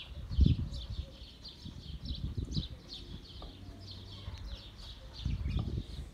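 Small birds chirping over and over in short falling chirps. Dull low knocks come about half a second in and again near the end, from handling the frying pan on the wood fire.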